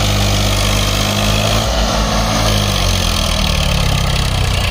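Massey Ferguson 7250 DI tractor's diesel engine pulling a trailer loaded with soil through deep mud. The engine note sags about two seconds in and climbs again near the end.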